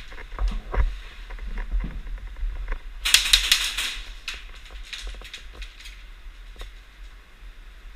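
Scattered sharp clicks and taps over a low hum, with a dense flurry of rapid clicks lasting about a second, about three seconds in.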